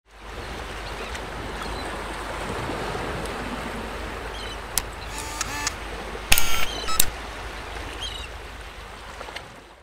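Logo intro sound: a steady rushing noise like running water fades in and out. About midway, a few short chirps and sharp clicks cut through it, the loudest two around six and seven seconds in.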